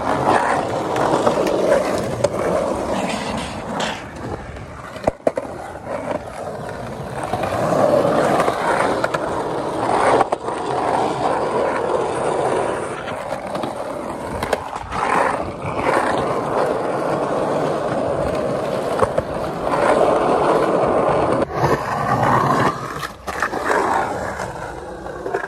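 Skateboard wheels rolling over rough asphalt: a continuous rolling noise that swells and eases several times, broken by a few sharp clacks.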